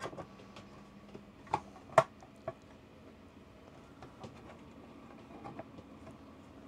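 Scattered light clicks and taps of a radio's metal cover being handled and pressed onto the chassis, with a sharper knock about two seconds in.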